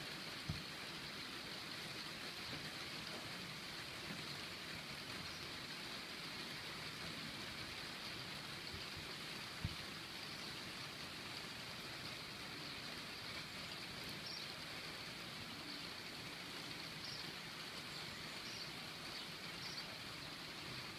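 Steady, even hiss of background noise, with two faint knocks, one just after the start and one about ten seconds in.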